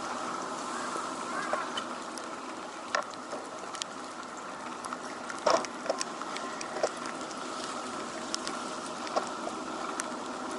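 Steady street noise in typhoon rain, with rain pattering and scattered sharp taps and clicks, the strongest cluster about halfway through.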